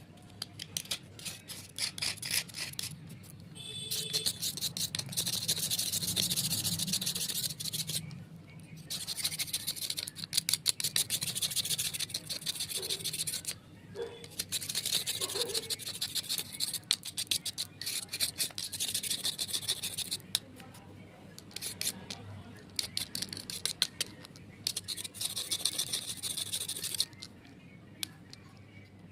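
Dry clay coating being rubbed and scraped off a slate: rapid rasping strokes in four runs of several seconds each, with short pauses between them.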